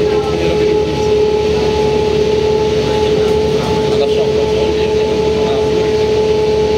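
Inside a 1994 Mercedes O405N city bus cruising at steady speed: the OM447h diesel engine and driveline running, with a steady high whine from the drivetrain over a constant rumble of road and body noise.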